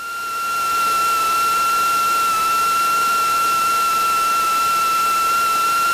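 Cessna 172 Skyhawk's stall-warning reed horn sounding as one steady high whistle over a steady hiss of cabin noise, its pitch rising slightly near the end. The horn is the sign of the wing at a high angle of attack at low airspeed, with the yoke held back on the landing rollout.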